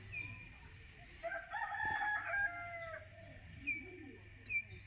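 A rooster crowing once, a call of about two seconds that falls in pitch at its end, with short high bird chirps before and after it.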